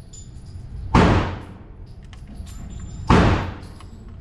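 Two pistol shots from a Glock in .40 S&W, about two seconds apart, each a sharp report with an echoing tail, in slow, steady fire.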